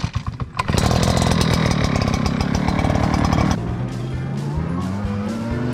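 Echo PB-9010T two-stroke backpack leaf blower engine starting up with a few sputters, then running really loud. About three and a half seconds in, it gives way to background music.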